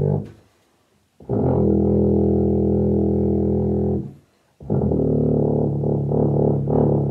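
Tuba played with a spandex cover stretched over its bell: long held notes of about three seconds each, with short pauses between them, one ending just after the start, the next starting about a second in and another just past the middle.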